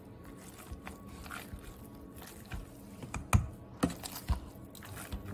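Hand potato masher working boiled potatoes in a stainless steel pot: soft squashing with scattered sharp knocks of the masher against the pot, the loudest three about half a second apart a little after three seconds in.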